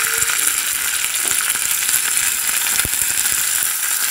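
Fresh curry leaves sizzling in hot ghee in a small steel tadka pan with cumin, mustard seeds and dried red chillies: a steady high hiss with a few faint pops.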